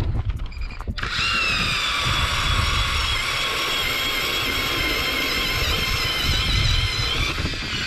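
StrikeMaster Lithium battery-powered electric ice auger drilling a hole through lake ice. The motor starts about a second in, runs with a steady whine, and winds down near the end.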